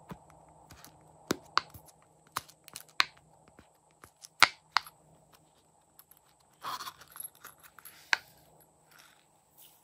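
Bubbles of a silicone pop-it coin purse pressed with a fingertip, giving sharp single pops at uneven intervals. About seven seconds in, there is a short rasp as the purse's zipper is opened.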